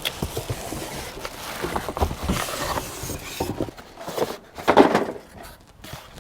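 Cardboard shipping box being handled and opened by hand: rustling, scraping and irregular knocks, with a few louder bursts about four to five seconds in.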